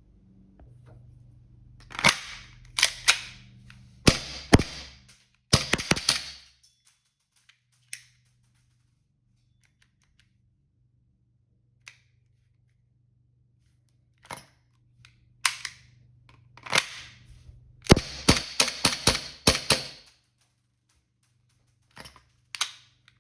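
Tokyo Marui Beretta M92F gas blowback airsoft pistol firing: sharp cracks of gas shots with the slide cycling, some single shots and several quick strings of rapid fire.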